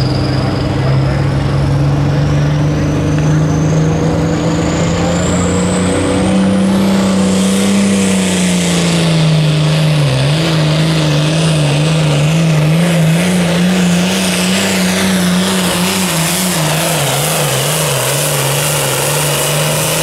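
Turbocharged diesel engine of an International Harvester hot farm pulling tractor running flat out under load while pulling the weight-transfer sled. Black smoke pours from the stack, and a high turbo whine climbs steadily in pitch over the first several seconds. In the second half the engine note wavers up and down as the sled's load builds.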